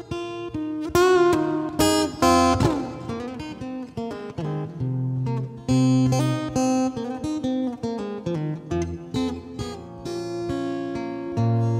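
Solo steel-string acoustic guitar played without singing: a run of picked notes and chords, a few each second, each ringing on.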